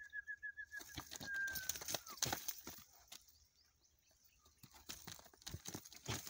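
Donkeys munching and tugging at dry fodder: a run of crunching and rustling crackles, thickest in the first half and again near the end. A bird's rapid trill runs through the first second and ends in a short falling whistle.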